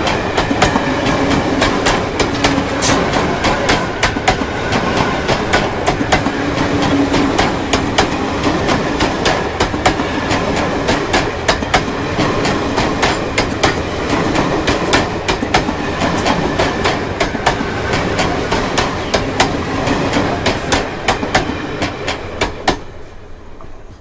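Freight train rolling past slowly, its wheels clacking over rail joints in a dense, irregular stream of clicks and knocks over a steady rumble. The sound dies away near the end as the train moves off.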